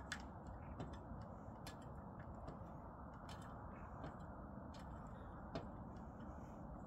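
Faint ticking, a sharp click about once a second, over a low steady background noise.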